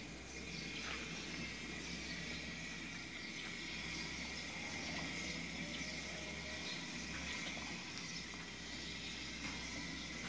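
A calf eating from a wooden feed trough: faint, scattered soft clicks and crunches of feed over a steady hiss, with a constant high-pitched drone throughout.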